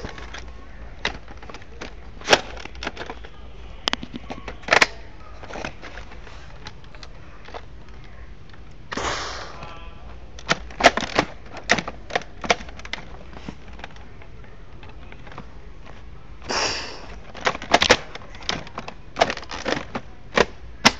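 Toy rifle being worked and fired: sharp plastic clicks and cracks in scattered clusters, with a short burst of noise midway and another about three-quarters through.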